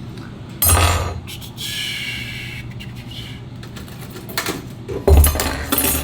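Small metal hand tools clattering and clinking as they are handled and rummaged through, with a short metallic ring about one and a half seconds in and a louder burst of clatter near the end.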